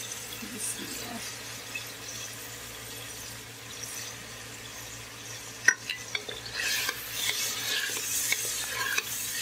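Raw beef pieces sizzling in hot oil with fried onions and ginger-garlic paste in a metal pot, stirred with a spatula. A sharp knock of the spatula on the pot about six seconds in, after which the sizzling gets louder as the meat is turned.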